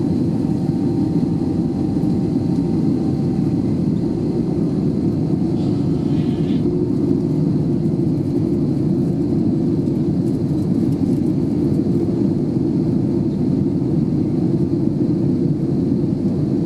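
Steady cabin noise of an Airbus A320 in flight, heard from a window seat: an even, low rushing sound of engines and airflow.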